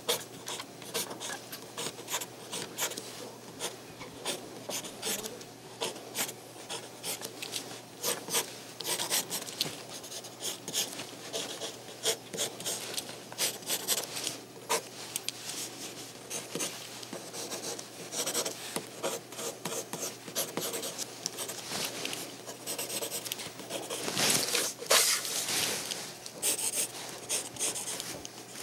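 Pencil scratching on drawing paper in quick, irregular sketching strokes, with a longer, denser run of strokes late on.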